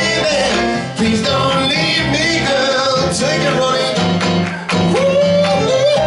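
Male vocal quartet singing a Motown-style soul song live over a band of drums, electric guitar and keyboard.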